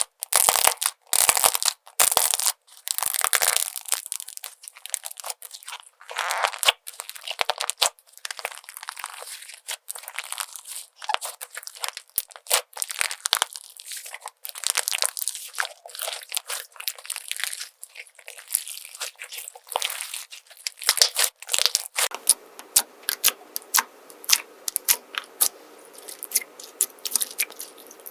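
Crunchy slime being squeezed and stretched, giving dense, irregular crackling and popping. About three quarters of the way through the sound changes to a new clip, with a faint steady background under quicker crackles.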